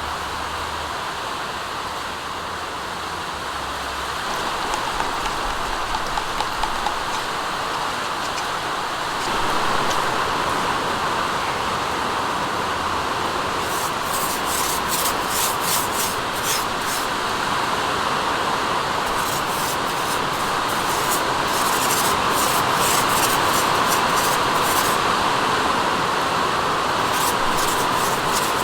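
Steady rain falling, an even hiss. Clusters of fine, rapid high-pitched hissing come in over it three times in the second half.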